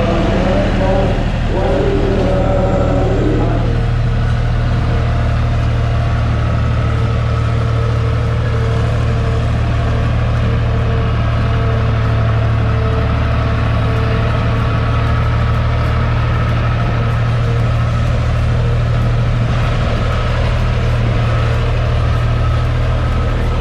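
John Deere skid-steer loader's diesel engine running steadily under load as the machine drives.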